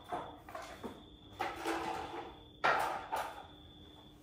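Handling noise from work on an open garage door opener's wiring: a series of clicks and knocks with a short rustle, the loudest knock a little under three seconds in, over a faint steady high whine.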